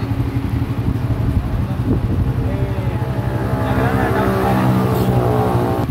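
An engine running at idle with a rapid, even pulse; from about two seconds in a higher, layered engine tone builds over it.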